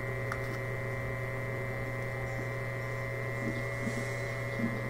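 Steady electrical hum with a thin high whine above it, unchanging throughout.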